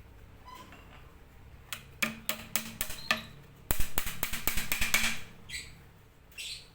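Bird-cage parts being fitted together: sharp clicks and taps, then a quick run of rattling clicks in the middle. Two short bird chirps come near the end.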